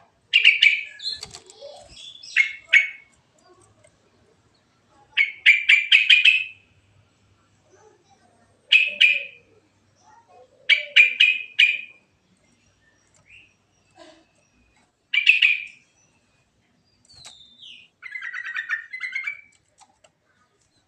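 Sooty-headed bulbul singing: short phrases of several quick, clear notes, repeated every two to three seconds.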